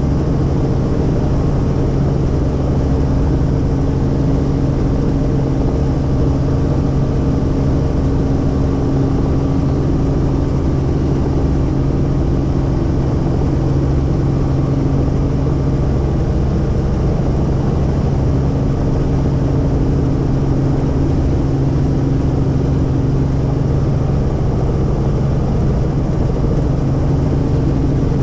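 Helicopter engine and rotors running in steady flight, heard from inside the cabin as a loud, constant drone with a steady low hum.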